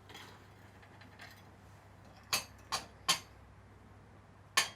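Four short, sharp clinks of hard objects: three in quick succession a little over two seconds in, and one more near the end.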